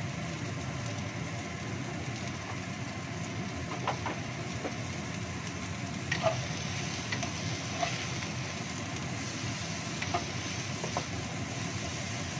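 Sliced onion and chilies sizzling in a nonstick wok while a wooden spatula stirs them, with a few light knocks of the spatula against the pan.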